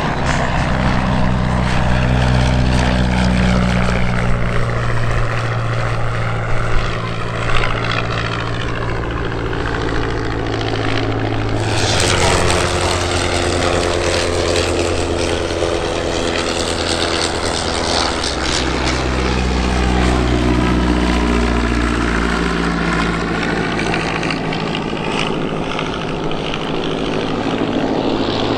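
Royal Aircraft Factory SE5a biplane's V8 piston engine running as it flies display passes. Its pitch bends up and down as it comes and goes, and it swells louder about twelve and twenty seconds in.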